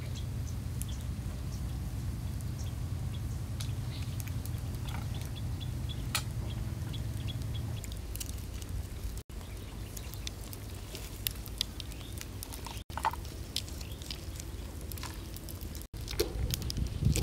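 Small knife cutting ingredients over a coconut-shell bowl, with scattered light clicks and taps as pieces drop in, over a steady low rumble. The sound cuts out briefly three times.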